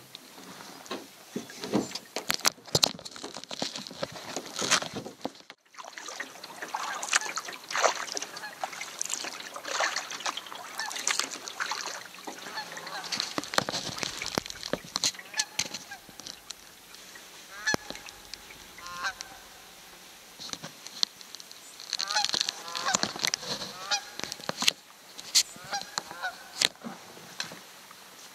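Repeated knocks and bumps of a canoe and its gear being handled on the water. In the second half come bursts of short honking bird calls.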